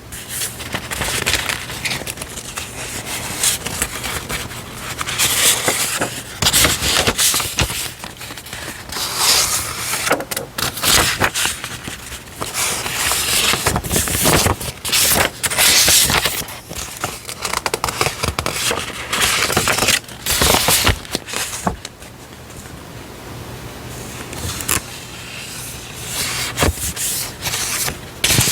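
Close-up handling of stationery: paper and plastic packaging rustling, crinkling and scraping in irregular bursts, with a quieter stretch about two-thirds of the way through.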